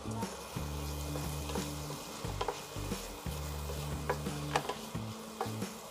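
Onions and tomatoes frying in masala in a pan, with a light sizzle. A utensil stirs through them, clicking sharply against the pan at irregular moments.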